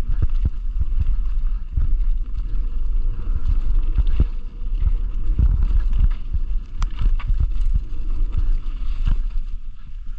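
Mountain bike descending a rough, leaf-covered dirt trail: a steady low rush of wind on the microphone, with the frame and drivetrain rattling and knocking irregularly over roots and rocks, and one sharp click about seven seconds in.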